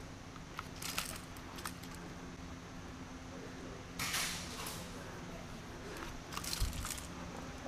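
Scattered light clicks and rattles of gear and an airsoft rifle carried by a moving player, with a short rustle about four seconds in and a dull thump near the end, over a steady low hum.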